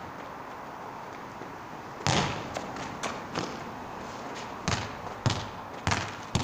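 Football thumps: a loud hard impact about two seconds in, like a kick or a hit, then a string of lighter thuds, the last several coming about half a second apart like a ball bouncing.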